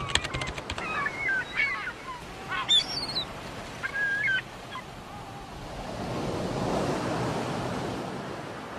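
A few quick clicks, then several short bird calls that bend up and down in pitch, followed by a rush of surf that swells and fades away.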